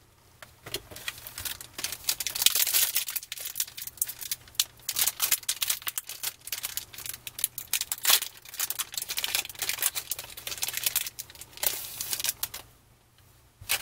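Foil trading-card pack wrapper crinkling and tearing as it is peeled open by hand, a dense run of crackles that stops near the end.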